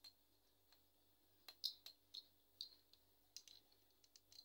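Irregular light clicks and taps, about ten of them, from handling a metal motorcycle phone holder with a phone clamped in it.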